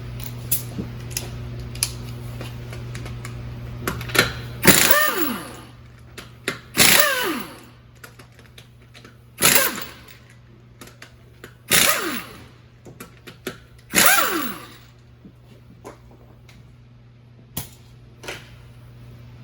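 Impact wrench running in five short bursts, each winding down in pitch as the trigger is released, as the wheel's lug nuts are spun off. Scattered clicks and a steady low hum lie between the bursts.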